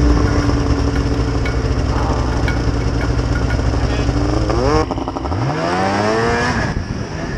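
Old snowmobile engines running steadily with a few clicks. About five seconds in, one sled's engine revs up in a long rising whine as it pulls away.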